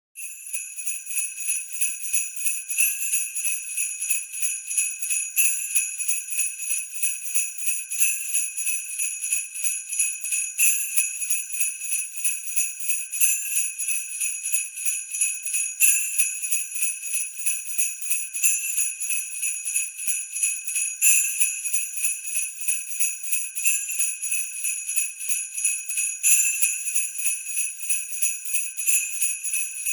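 Sleigh bells (jingle bells) shaken continuously in a steady rhythm, jingling brightly, with a stronger shake about every two and a half seconds.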